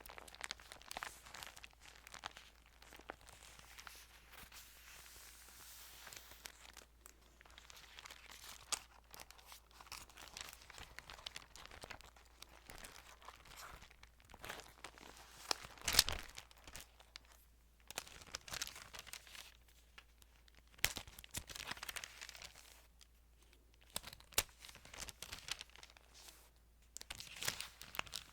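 Thin Bible pages being handled and turned: soft papery rustles and swishes with scattered crisp crackles, the loudest one about halfway through.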